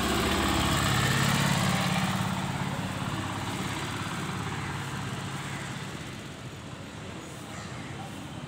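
A motor vehicle's engine passing close on the road, loudest about a second in, then fading away into steady background traffic noise.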